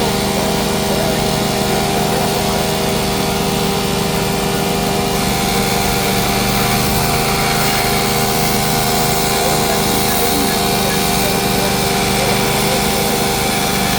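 Steady machine drone of forge-shop equipment running without let-up, a broad rushing noise with several constant hum tones.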